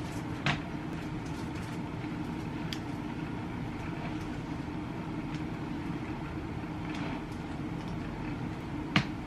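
Steady low background hum with two sharp clicks, about half a second in and near the end, as a hair straightener is handled.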